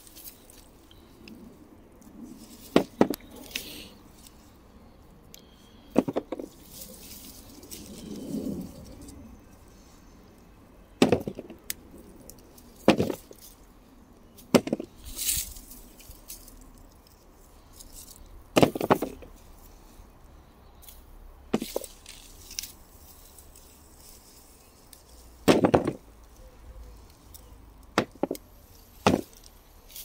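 Hands working through loose soil and pulling potato stems while digging potatoes out of a raised bed, with a sharp short knock or crack every few seconds, about ten in all.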